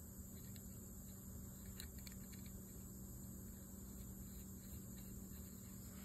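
Quiet room tone with a steady low hum, and a few faint clicks about two seconds in as a small nut is turned by hand onto the bail-wire screw of a spinning reel's rotor.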